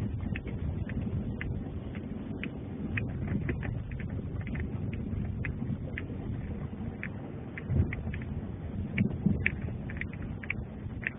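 Steady low rumble of wind on a cell phone microphone, with scattered light clicks and ticks.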